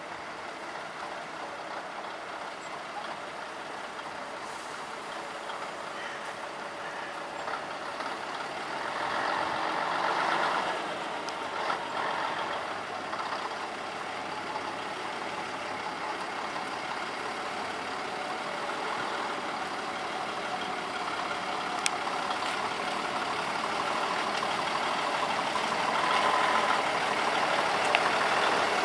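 Vintage Scania 110 truck's straight-six diesel engine running at low speed as it pulls a box trailer closer, growing steadily louder toward the end. A brief swell about ten seconds in and a single sharp click past the middle.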